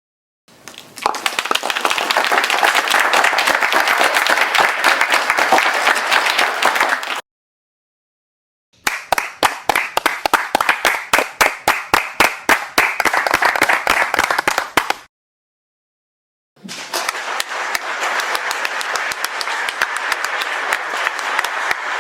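Small audience clapping in a room, in three separate takes with short silent gaps between them. The middle take is sparser, with individual claps standing out, while the first and last are denser, fuller applause.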